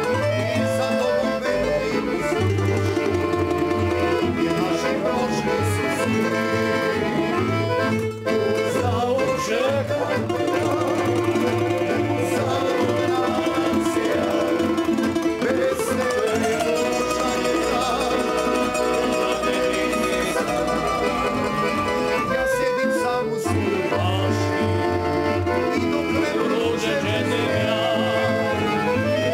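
Tamburica band playing and singing live: plucked tamburicas, a Dallapé accordion and a double bass, with several men's voices singing together over a pulsing bass line.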